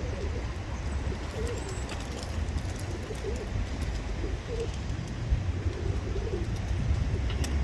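Pigeons cooing in a flock, with short wavering coos repeating over a steady low rumble and a few sharp clicks.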